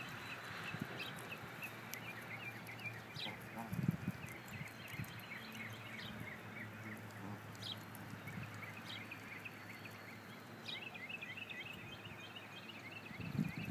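Faint outdoor ambience with small birds chirping in quick runs throughout, and a few crisp clicks a second or two apart from a Canada goose plucking grass close by.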